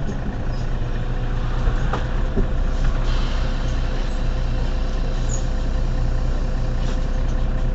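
Mercedes-Benz Citaro city bus engine idling steadily while the bus stands at a stop.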